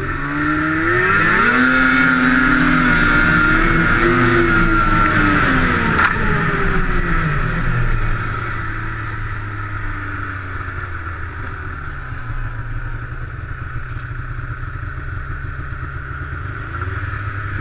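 Two-stroke snowmobile engine revving up over the first couple of seconds, held at high revs for several seconds, then dropping away about halfway through to a lower, steady drone.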